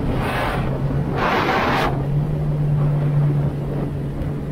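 2019 Yamaha GP1800R WaveRunner's 1.8-litre four-stroke engine running steadily under way, with a steady hum. Two short rushing bursts of noise come in the first two seconds.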